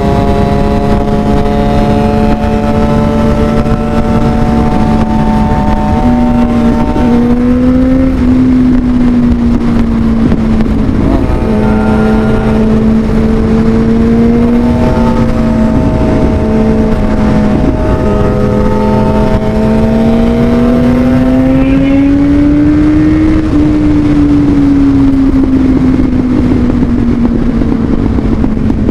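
Motorcycle engine running steadily under way, its pitch drifting and rising slowly before falling back, over heavy wind and road noise.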